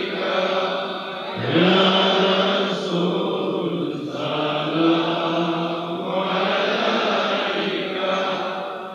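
Male voices in Islamic devotional chanting: a slow, drawn-out melody with long held notes and a rising glide about a second and a half in.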